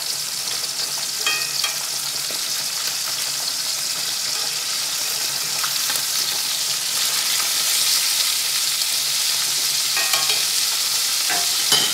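Chicken breasts sizzling in olive oil and butter in a cast iron skillet, a steady frying hiss. Metal tongs click a few times against the pan as the pieces are turned, about a second and a half in and again near the end.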